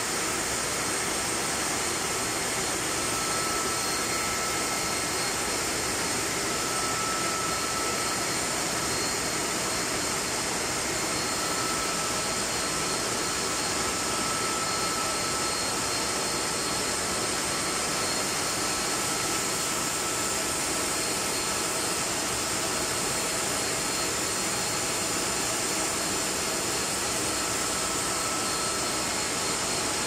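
Refrigeration compressor machinery running steadily: a continuous loud mechanical roar and hiss with thin, steady high whines, unchanging throughout.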